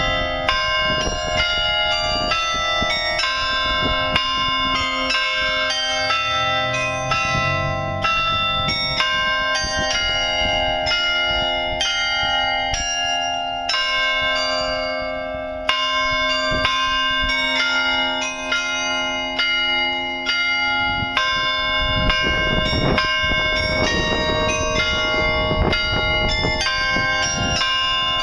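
The New Ulm Glockenspiel's carillon bells playing a tune, one struck note after another, each ringing on as the next sounds.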